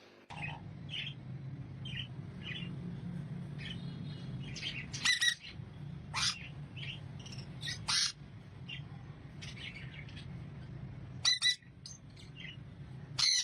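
Parrot calling: a run of short chirps broken by about five loud, sharp squawks, the strongest about five seconds in, about eight seconds in, and near the end. A steady low hum runs underneath.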